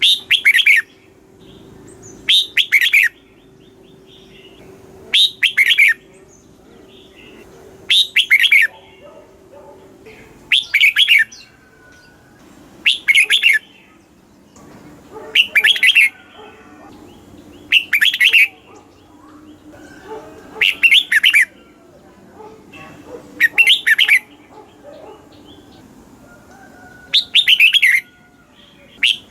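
Red-whiskered bulbul singing its short, loud song phrase over and over, about one phrase every two and a half seconds, each a quick run of a few notes.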